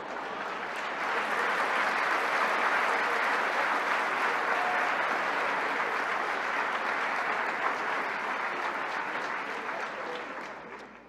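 Large seated audience applauding, building over the first second and dying away near the end.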